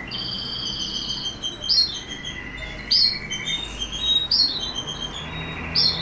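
Canary singing: rapid trills held at steady pitches, switching from one roll to the next, broken by four loud, sharp notes about every second and a half.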